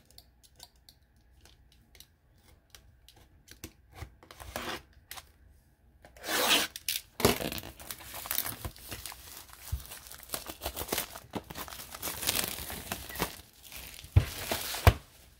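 A sealed trading-card hobby box being torn open: its plastic wrap and packaging tearing and crinkling in long rips, after a few seconds of scattered light clicks and taps. A few sharp knocks come near the end.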